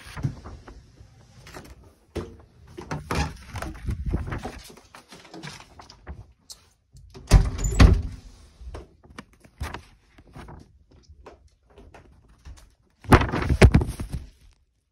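Irregular knocks, thumps and rustling from a handheld phone being handled and carried, in several loud clusters with quieter gaps between.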